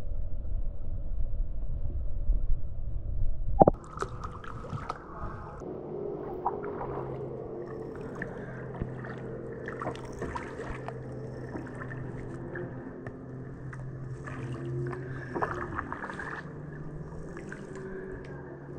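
Kayak paddle dipping and dripping water, with small splashes, gurgles and knocks over a faint steady hum. For the first few seconds a loud low rumble covers it, ending with a sharp knock about four seconds in.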